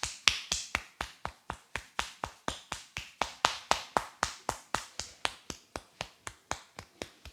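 Rhythmic percussive head massage: the barber's hands strike the head in quick sharp claps, about four a second, and stop near the end.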